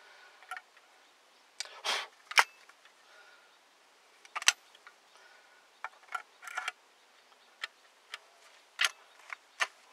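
Single-barrel break-action 12-gauge shotgun being worked by hand: about a dozen irregular sharp metal clicks and clacks as the barrel is swung and pushed against the action, the loudest about two and a half seconds in. The action will not lock shut because the primer in the brass shell sits proud of the case rim instead of flush.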